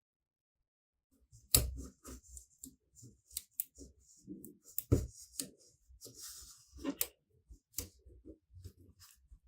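Hands working on a laptop: irregular clicks, knocks and light scraping of parts being handled. The loudest knocks come about a second and a half in and again near the middle.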